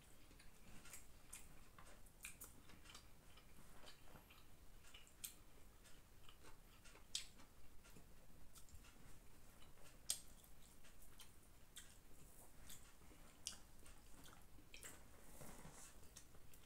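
Faint sounds of eating by hand: fingers working biryani rice and boiled egg on a banana leaf, and chewing, with scattered short, sharp clicks, the sharpest about seven and ten seconds in.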